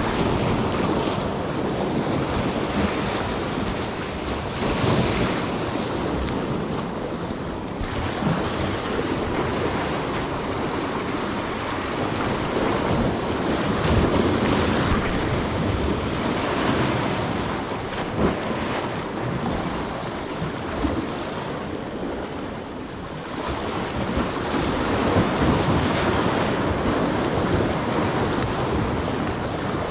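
Ocean surf washing against a rock jetty, with wind rushing over the microphone. The noise swells and eases every several seconds as waves come in.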